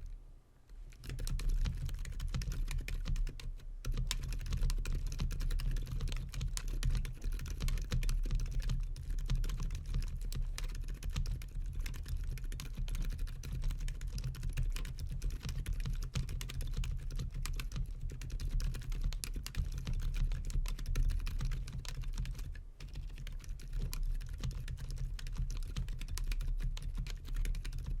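Continuous fast typing on a Gamakay K87 tenkeyless mechanical keyboard with stock Gazzew Boba Gum 62 g silent linear switches, starting about a second in. Rubber nubs on the switch stems damp both the downstroke and the upstroke, so the keystrokes are muted. The loudest parts are desk vibration and fingernails hitting the keycaps.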